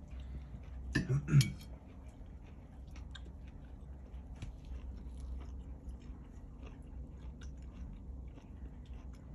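A person chewing a mouthful of food close to the microphone, with small clicks and crunches from the mouth, over a low steady hum. A short vocal sound comes about a second in.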